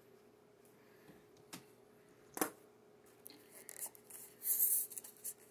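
Small handling sounds at a table: a few sharp clicks, then brief scratchy rustles, the loudest about four and a half seconds in, from a foam coffee cup and paper napkin being handled, over a faint steady hum.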